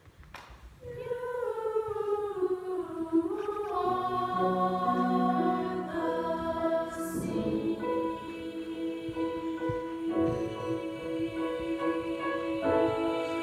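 Girls' youth choir singing in harmony: after a brief near-silent pause the voices come in about a second in, sliding down into long held chords that fill out as more parts join around four seconds in.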